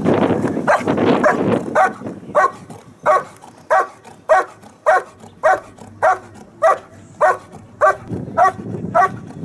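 German Shepherd barking steadily at a helper hidden in a blind, a little under two barks a second in an even rhythm: the hold-and-bark of protection work.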